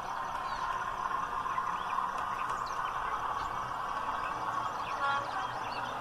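OO gauge model goods train running: a diesel locomotive hauling a rake of tank wagons around a curve, with steady running noise and faint short chirps over it. A brief, slightly louder tone comes about five seconds in.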